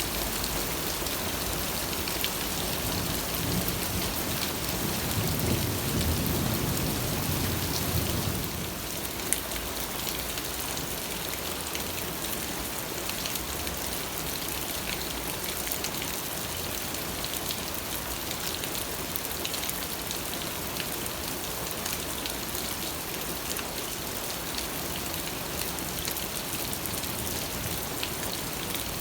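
Steady rain falling, with a low rumble of thunder that swells and fades away in the first eight seconds or so.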